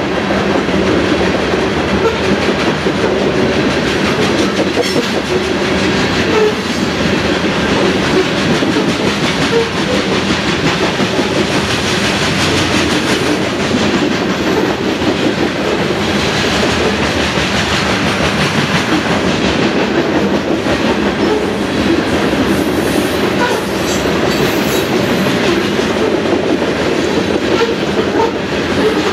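Covered hopper cars of a freight train rolling past close by, their steel wheels clicking and rumbling over the rails in a steady, loud stream of noise.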